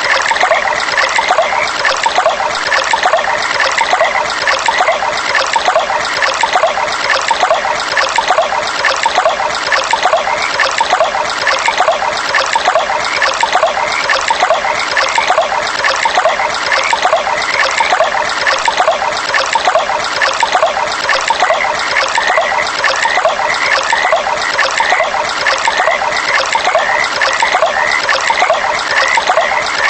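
A stream of running water trickling steadily, with frogs calling in short, repeated notes over it; the calls grow busier in the last third.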